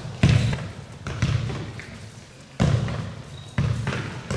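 Futsal balls being kicked and stopped during goalkeeper shooting practice: about five sharp thuds, each echoing in a large sports hall.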